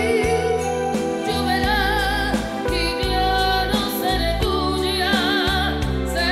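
A woman singing lead with a live band, her held notes wavering with vibrato over a steady bass line.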